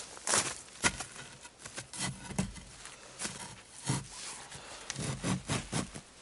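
Boots crunching in snow and wooden poles knocking as they are handled and set in place, in irregular sharp steps and knocks.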